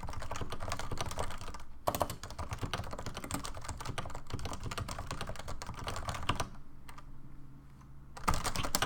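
Stock Realforce 87U keyboard with 55 g Topre electrostatic capacitive switches being typed on quickly, a steady run of soft key strokes. It breaks off briefly about two seconds in and thins out near the end, just before a final quick burst of keystrokes.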